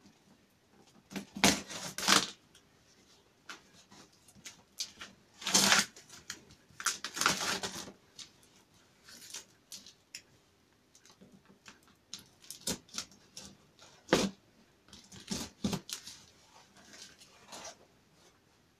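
A long cardboard box being handled and opened: irregular bursts of cardboard and packing tape scraping and rustling, the loudest in the first half.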